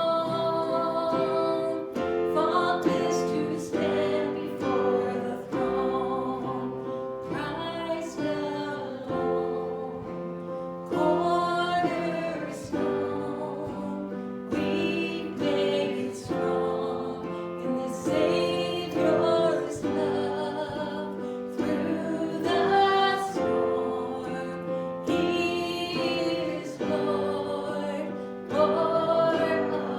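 Church worship music: voices, a woman's among them, singing a song over long held chords from instruments.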